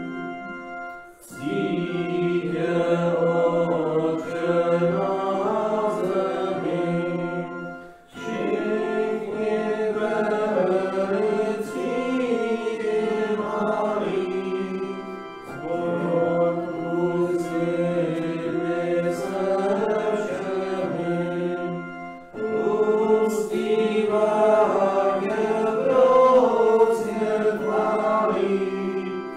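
A hymn sung to held, sustained chords, in phrases of about seven seconds with short breaks between them.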